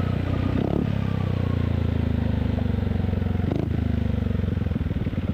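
Yamaha XMAX 250 scooter's single-cylinder engine running through a Villan MV1 stainless exhaust with the dB killer removed, ridden at speed. Near the end the separate exhaust beats stand out in an even pulsing.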